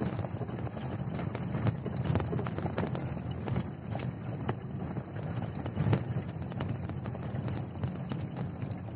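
Wind rumbling on a phone's microphone, with many irregular clicks and knocks.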